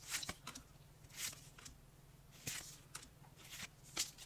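Pokémon trading cards being slid one behind another while flipping through an opened booster pack: a series of soft, brief swishes, about seven in four seconds.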